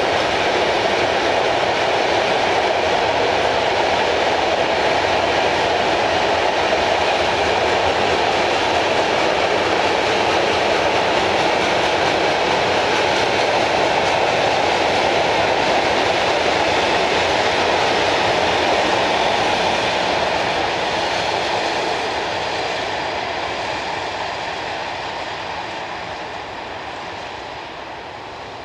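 Long freight train of tank and container wagons rolling past, a steady noise of wheels on rails that fades away over the last several seconds as the train draws off.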